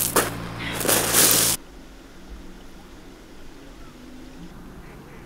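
Boots crunching on a loose pebble and gravel lakeshore, several quick footsteps in the first second and a half. Then the sound cuts abruptly to a quiet, steady outdoor background.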